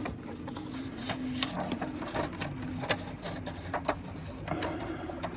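Pages and a paper insert being handled and fitted onto the metal rings of a Louis Vuitton ring-binder agenda: soft rustling with many small, irregular clicks and ticks, several a second, over a faint low hum.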